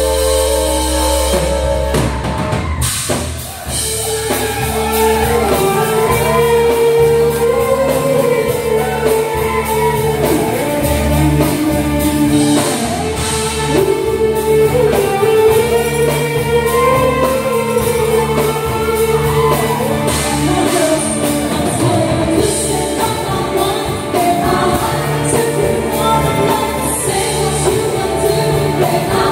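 A rock/pop band playing a song with a singer over drum kit and guitar. A held chord opens it, then about three seconds in the drums and a sung melody come in and carry on steadily.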